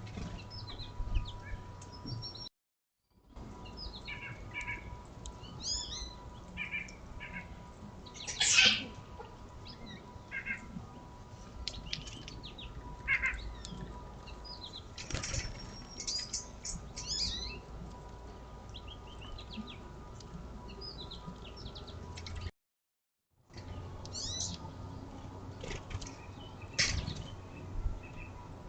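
Small songbirds at a feeder calling with short high chirps and trills, mixed with a few louder brief sharp sounds. The sound drops out twice for about a second.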